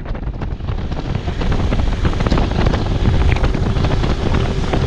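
Wind buffeting the microphone on a moving motorbike, a steady rushing rumble full of gusty crackles, with the bike's ride noise beneath it. A faint steady hum joins about halfway through.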